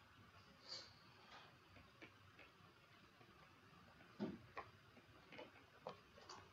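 Near silence with faint, irregular taps of a stylus on a tablet screen as numbers are written out by hand.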